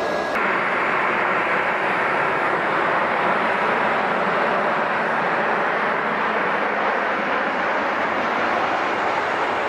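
A Boeing 737-800 airliner's CFM56-7B jet engines running as it flares to land, a steady rushing engine noise that starts abruptly about half a second in.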